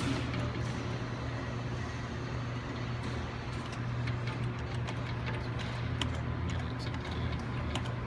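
Steady arcade room noise: a low machine hum under an even din, with scattered faint clicks.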